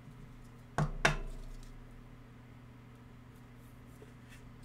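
Two sharp clicks close together about a second in, from a rigid clear plastic top loader knocked and handled as a trading card is slid into it, then a faint tick near the end.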